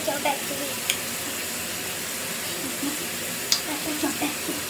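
Water running steadily from a sink tap, an even rushing hiss.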